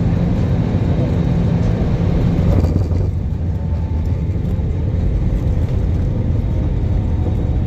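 Steady low rumble of Airbus A320 engines and airflow, heard inside the cabin. The higher hiss drops away about three seconds in.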